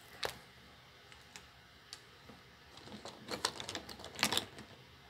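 Light scattered clicks and taps of hard plastic action-figure parts being handled, a few isolated ones and then a quick cluster of them about three to four and a half seconds in.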